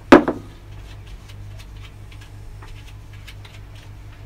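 A single sharp knock just after the start, as something is set down hard on the workbench, then faint light clicks of a metal camshaft bearing cap being handled.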